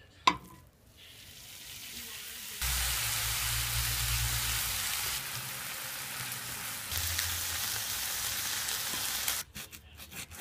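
Thinly sliced beef sizzling in a hot frying pan: a steady hiss with a low hum beneath it, starting faintly about a second in, jumping louder a couple of seconds later and cutting off abruptly near the end. A single sharp click comes just after the start.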